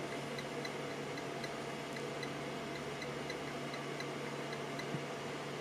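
Steady low hum and hiss of car-audio bench test gear running a constant sine-wave load test into a dummy load, with faint light ticks about three times a second.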